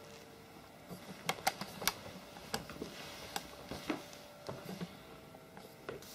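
A string of irregular sharp clicks and light taps, about a dozen, starting about a second in, with the loudest few in the first half, over a faint steady hum.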